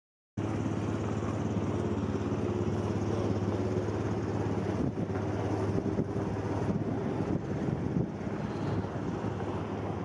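A hot rod's engine running at a steady idle. It cuts in abruptly about half a second in.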